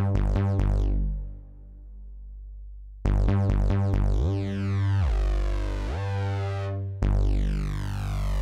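Synthesizer bass from Steinberg's SIMPLE synth in HALion Sonic 3. Fast repeated deep bass notes stop about a second in and ring out. From about three seconds, held bass notes carry a few rising sweeps, and a new note starts near the end whose bright upper tones quickly fade.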